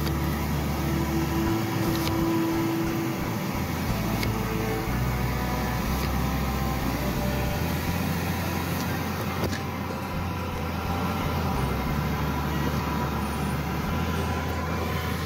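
Outdoor street noise of passing road traffic: a steady mix of vehicle engines and tyre noise with a low rumble. A steady tone comes in about a second in and lasts about two seconds.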